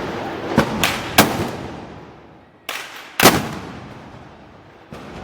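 About six loud gunpowder bangs at uneven intervals, each followed by an echoing decay; the loudest comes a little past three seconds in.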